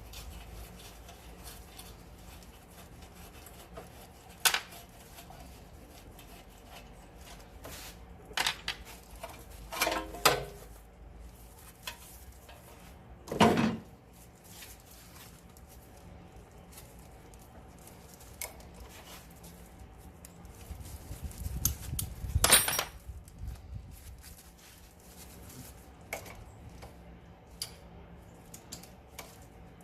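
Metal tools and parts clinking and clanking now and then, with about five louder knocks spread out and a rattling cluster building to the loudest one about two-thirds of the way in, over a low steady hum.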